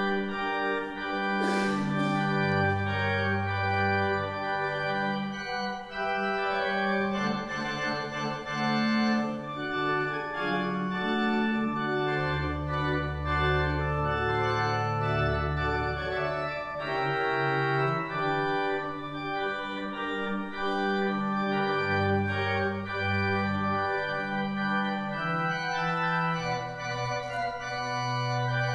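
Church organ playing held chords over a slowly moving bass line, the notes steady and sustained without decay.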